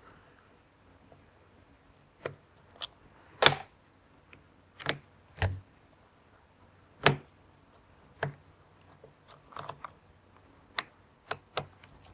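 Irregular sharp clicks and taps of a screwdriver backing screws out of a Makita cordless reciprocating saw's plastic handle housing, with the plastic parts knocking as they are handled. The loudest taps come about three and a half and seven seconds in.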